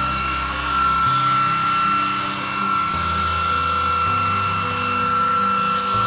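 Hair dryer running steadily on its low-heat setting, a constant high whine. Background music with a slow bass line plays under it.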